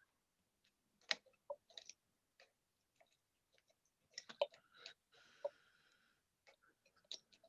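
Faint, scattered clicks and ticks of a lock pick and tension wrench working the pins of a challenge lock, with a short scrape lasting about a second near the middle.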